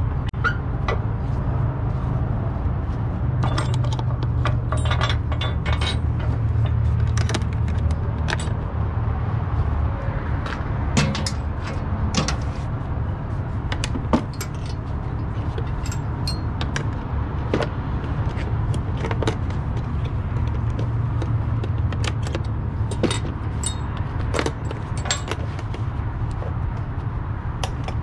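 Heavy tow truck's engine idling with a steady low rumble, under repeated sharp metallic clinks and jingles as chains, hooks and a tow light bar are handled and stowed on the wrecker.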